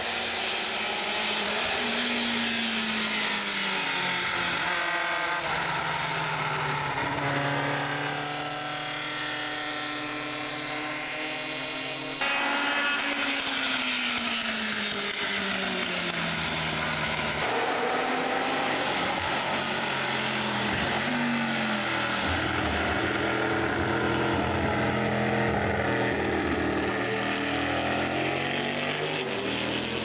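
Formula 5000 single-seater race cars' V8 engines at racing speed, one car after another, the pitch climbing through the gears and falling away as each car passes.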